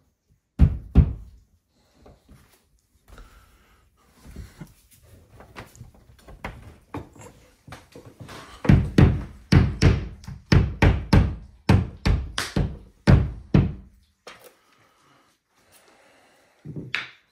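A mallet knocking wall anchors into drilled holes in a wall: two hard blows about half a second in, then a quick run of about fifteen knocks, some three a second, through the middle of the stretch.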